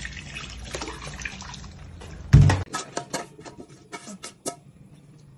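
Water running from a kitchen tap into a sink, cut off with a loud thump about halfway through, followed by drips and light clinks.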